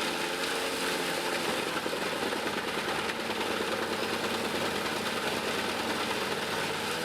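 Tractor-powered industrial wood chipper running steadily: an even engine drone with a broad noise over it and no separate strikes.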